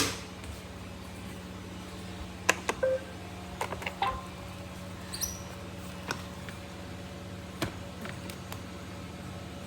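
Robot vacuums being handled and switched on: scattered clicks and knocks of buttons and plastic bodies, with a few short electronic beeps, one of them a quick rising chirp about five seconds in, over a steady low hum.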